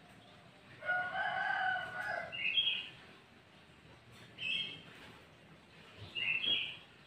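Sooty-headed bulbul (kutilang) giving short, bright whistled phrases three times. A rooster crows once in the background about a second in, in one long call that is the loudest sound.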